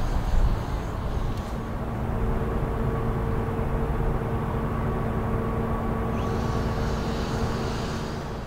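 Outdoor harbour ambience: a low rumble, with the steady drone of a distant engine coming in about two seconds in and holding, fading near the end.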